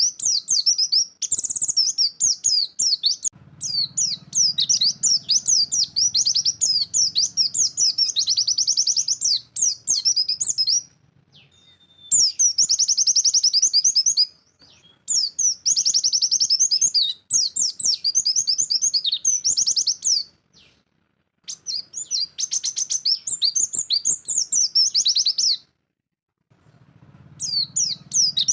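White-eye (pleci) singing its fast 'nembak' song: long runs of rapid, high, sweeping chirps in phrases several seconds long, broken by short pauses.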